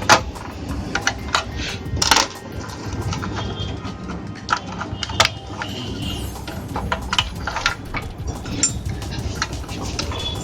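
Irregular small clicks and metallic clinks of hands and tools working on an inverter's circuit board as its wire connectors are pulled off, over a steady low hum.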